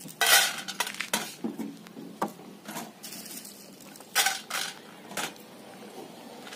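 Steel bowls and utensils clattering as they are handled: a series of sharp metallic clinks and knocks, the loudest near the start and again about four seconds in.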